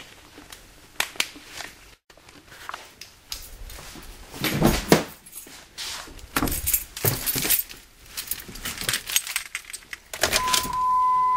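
Keys jangling among clicks and knocks of handling as the driver's door of a 2002 Dodge Neon is opened. Near the end a steady high warning beep from the car starts and holds.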